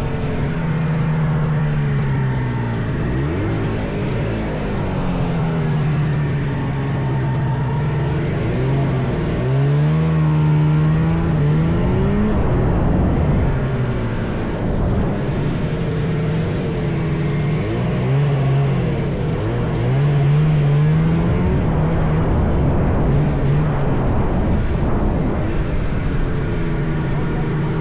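Vintage John Deere snowmobile's two-stroke engine running under way, revving up and easing off again and again as the throttle is worked.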